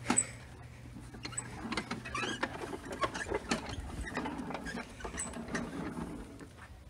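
Walk-behind lawn mower being pushed over bare dirt, its wheels, deck and handle rattling and clicking irregularly. A low steady hum stops about three seconds in.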